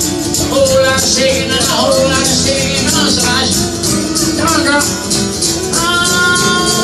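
Live acoustic guitar and singing, with a hand-held tambourine shaken in a steady rhythm.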